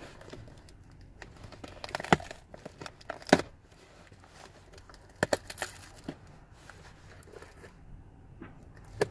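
Pocket knife slicing through packing tape and a cardboard shipping box, in sharp crackling cuts, loudest about two, three and five seconds in, with the box rustling between them.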